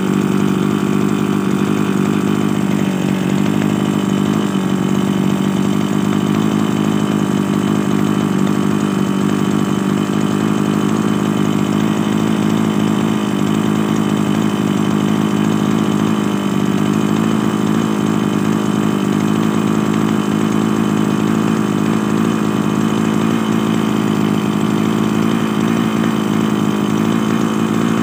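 Tanaka TB33 backpack brush cutter's small two-stroke engine idling steadily, its pitch creeping up slightly toward the end. It is running on the fuel left in the carburettor after the fuel was shut off, left to run until it dies so the carburettor dries out for storage.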